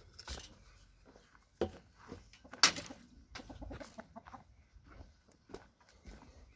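Hens clucking, mixed with short knocks and clatter from handling a plastic tray and walking by the wire run. The loudest knock comes a little under three seconds in.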